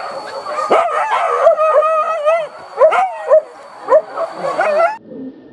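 A pack of hunting dogs barking, yelping and howling in overlapping calls, giving chase to a wild boar crossing the rice field. The sound cuts off suddenly about five seconds in.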